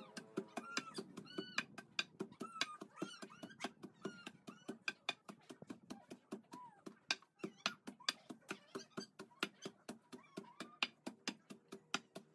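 Wooden pestle pounding weeds in a stone mortar: a steady run of knocks, about four a second. Short high chirping calls of an animal come and go over the pounding.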